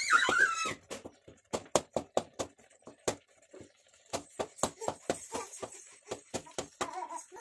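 A metal spoon clinking and scraping against a metal pan as jowar flour is stirred into boiling water to break up lumps, in irregular sharp clicks a few times a second. A high voice sounds briefly at the start and again near the end.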